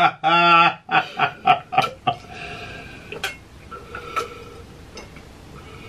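A man laughing: one drawn-out laugh, then a quick run of short laughs that dies away about two seconds in.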